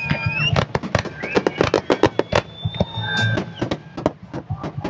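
Fireworks display: aerial shells bursting in quick succession, a dense run of sharp bangs and crackles with a few held high tones drawn over them.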